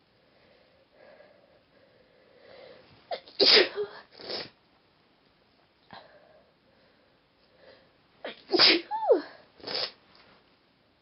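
A woman's induced sneezes in two bouts about five seconds apart, each a quick catch of breath followed by loud sneezing bursts.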